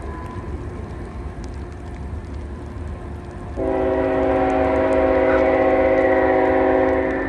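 Train horn sounding one long blast, several notes held together as a chord, starting about three and a half seconds in and ending near the end. Under it, a steady low rumble.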